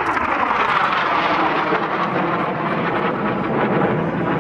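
Mitsubishi T-2 jet trainer's twin Adour turbofans at full power as it passes close overhead and climbs away. The jet noise falls in pitch over the first second or two as it goes by.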